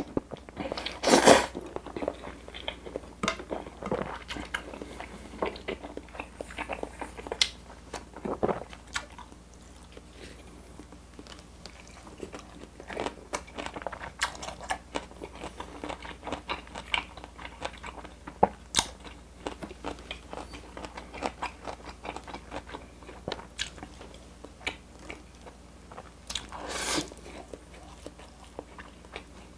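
Close-miked eating: a loud slurp of carbonara spaghetti about a second in, then chewing with many small wet mouth clicks. Another short rushing sound comes near the end.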